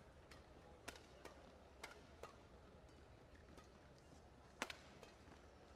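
Badminton rackets striking a shuttlecock in a fast doubles rally: sharp, irregular clicks roughly every half second, the loudest about four and a half seconds in.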